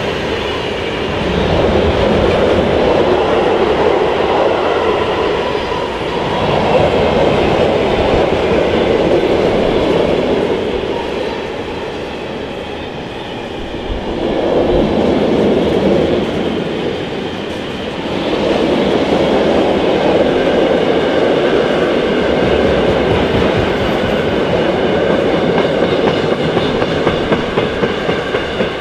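Freight train of car-carrier wagons rolling past close by, a steady rumble of wheels on rail that swells and eases several times as the wagons go by. Near the end comes a run of evenly spaced wheel clacks.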